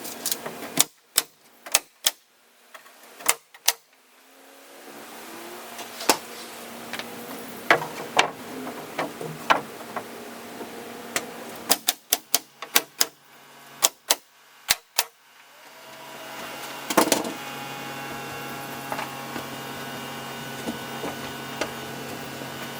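Nails being driven into framing lumber and sheathing: a series of sharp single strikes, some about half a second apart and some in quick runs. About two-thirds of the way through, a steady motor hum comes in and keeps running.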